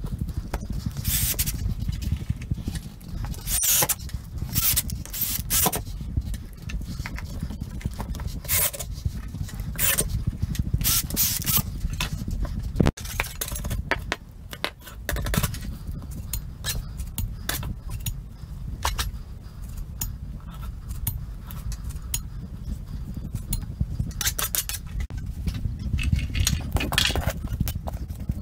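A knife scraping and cutting at drywall around a ceiling patch: many short, irregular scraping strokes over a steady low rumble.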